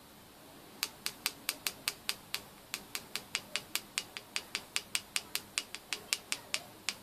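A rapid run of sharp ticks, about five a second, starting about a second in and going on with one brief pause.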